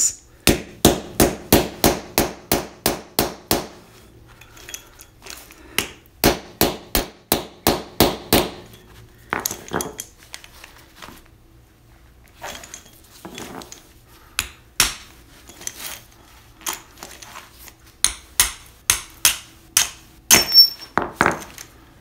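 Small sledgehammer blows on a steel punch driven into a steel bike-lock body, in fast runs of about four strikes a second with pauses between runs. It is a destructive attack to break the lock's shackle free, and the punch is getting torn up by the blows.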